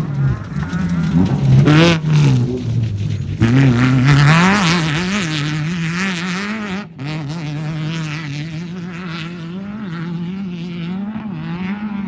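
Off-road race car engine revving hard, its pitch rising and falling rapidly as the throttle is worked, with sharp surges in the first few seconds and a brief cut about seven seconds in.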